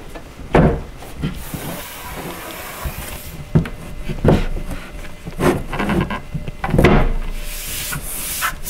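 Shelf unit's top panel being shifted and pressed down onto the cubby: panel rubbing and scraping across the edges, with several knocks as it settles onto the pegs and into the back-panel groove.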